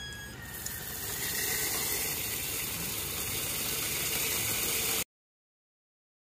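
Pistol-grip garden hose nozzle spraying water into a pot of soil, a steady hiss of water that picks up again about half a second in and cuts off abruptly about five seconds in.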